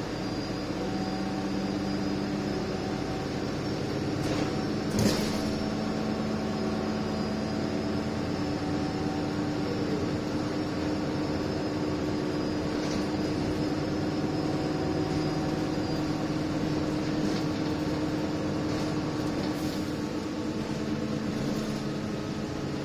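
Inside an Alexander Dennis Enviro 300 single-deck bus under way: a steady engine and drivetrain hum with a faint high whine. A single sharp knock comes about five seconds in, with a few fainter rattles later.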